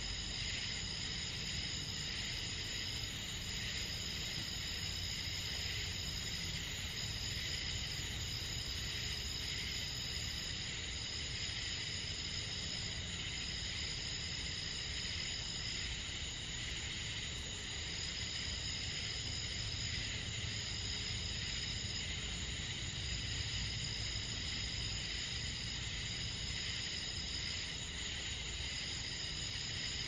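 A night chorus of crickets and other insects: several steady, overlapping high trills, the highest one pausing briefly every few seconds, over a low steady rumble.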